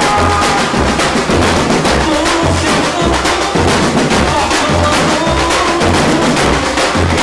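Samba-reggae drum corps playing loud and continuous: deep surdo bass drums striking about once a second under a dense rattle of snare and repique drums.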